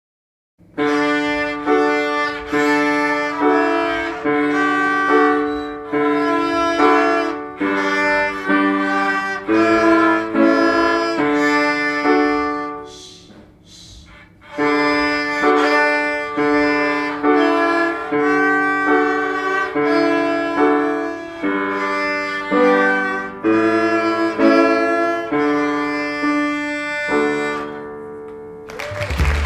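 Two violins playing a simple tune together in short bowed notes, breaking off for about a second and a half midway before starting again.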